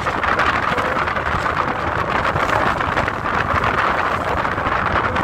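Steady rushing noise of a sightseeing cruise boat under way on a lake: engine rumble, water and wind mixed together.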